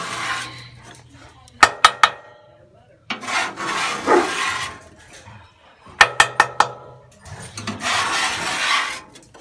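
Metal griddle scraper scraping across a hot steel flat-top griddle in long strokes, three times, with quick runs of sharp metallic taps between them, three and then five, as the scraper is knocked against a cast iron pan to clear off the gunk.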